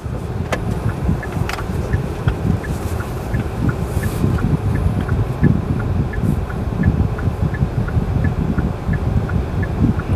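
In-cabin sound of a Hyundai Stargazer driving slowly: a steady low rumble from its 1.5-litre engine and tyres, with a turn-signal indicator ticking about three times a second as the car turns.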